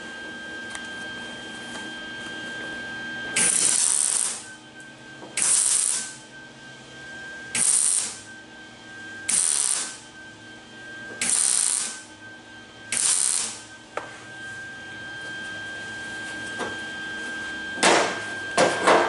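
MIG welder laying six short tack welds on a thin steel door skin, each a burst of about half a second to a second, roughly two seconds apart. A few knocks follow near the end.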